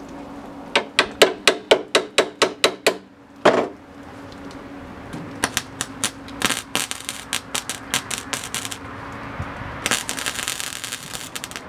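MIG welder tacking sheet-metal patches into a steel tailgate in short crackling bursts. It starts with about ten quick stitch welds, roughly four a second, followed by irregular spits and then a longer steady sizzling bead near the end, over a low hum. The welder is acting up, which the owner puts down to the wire roll running near its end.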